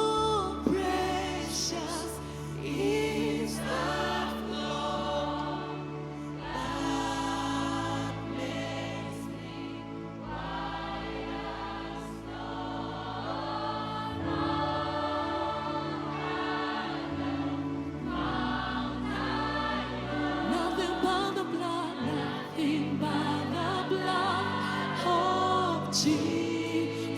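Gospel worship band with choir singing together: several voices in chorus over keys and long held bass notes that change every few seconds.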